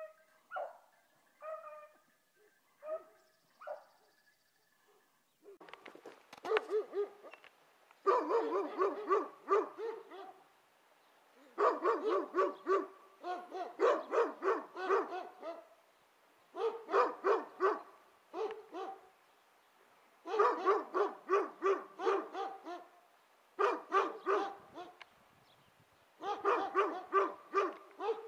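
A pack of beagles baying in full cry, the voice hounds give on a hare's scent. A few single calls come first, then about five seconds in the pack joins in with many overlapping voices in repeated bursts separated by short pauses.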